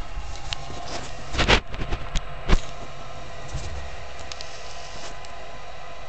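Lennox SLP98V gas furnace running with its burner lit: a steady mechanical hum. A cluster of loud knocks comes about a second and a half in, and another sharp knock about a second later.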